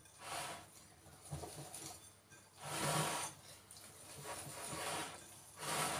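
Wire whisk stirring a flour mixture in a glass bowl: soft scraping and swishing in several uneven strokes.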